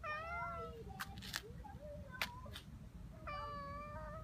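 Domestic cat meowing twice, a drawn-out meow at the start and another near the end, with a few sharp clicks in between.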